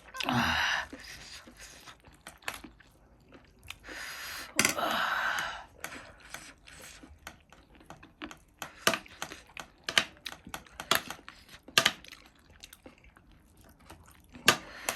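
A person chewing a mouthful of spicy volcano noodles and soggy chatpate close to the microphone: many wet clicks and smacks of chewing, with two longer breathy sounds, one at the start and one about four and a half seconds in.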